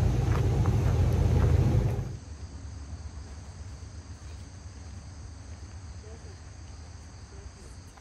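A low rumble of passing road traffic for about two seconds, then it cuts off abruptly. After that only a faint, steady high chorus of insects such as crickets remains.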